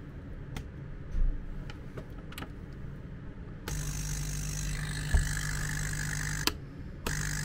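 The MET AIR T-100 aluminium alternating-pressure mattress compressor is switched on about halfway through, after a few quiet handling clicks, and its pump starts with a steady hum and a hiss of air. Near the end it cuts off with a click for about half a second, then starts again and runs steadily, working again after the repair of a loose internal contact.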